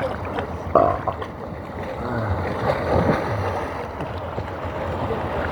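Sea water sloshing and lapping close to a camera strapped to a swimmer, with a brief louder splash just under a second in.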